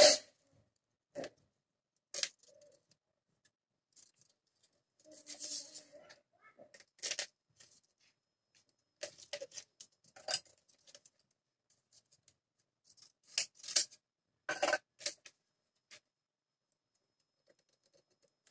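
Stiff insulating paper being wrapped and pressed around a copper-wound output-transformer coil on a winding jig: irregular crinkles, rustles and sharp clicks of paper handling. The loudest click comes right at the start.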